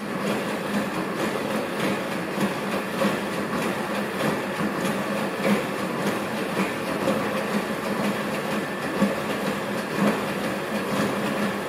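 ANYmal quadruped robot trotting in place: a steady hum from its electric joint actuators, with its feet tapping the floor in a quick, even rhythm.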